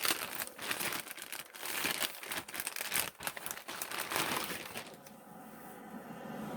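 Crinkly packaging from a mail-order delivery rustling and crackling as a dress is handled and unwrapped, with dense irregular crackles that die away about four and a half seconds in.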